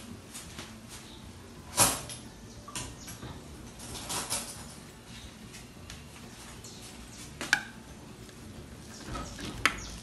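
A few separate sharp clicks and taps of metal cutlery against a ceramic plate as a slice of cake is served. The loudest comes about two seconds in, and the others are spread through the rest.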